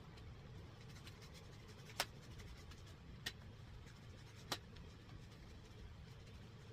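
A spline roller tool pressing round spline and screen mesh into a sliding screen door frame's channel: faint scraping and rubbing, with three sharp clicks about a second and a quarter apart.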